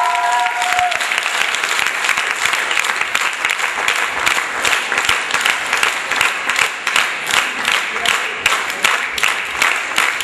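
Audience applauding a stage performance, many hands clapping densely; in the second half the clapping falls into a steady rhythm of about three claps a second.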